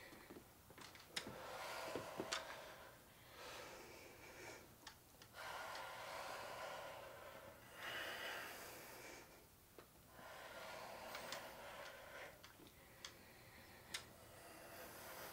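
Faint, heavy breathing of people straining through a dumbbell set: long breaths every couple of seconds, with a few sharp clicks in between.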